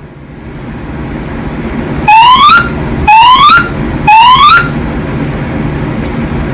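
Fire alarm voice evacuation system sounding three rising whoop tones through the building's loudspeakers, each about half a second long and one a second apart, between repeats of its spoken evacuation message.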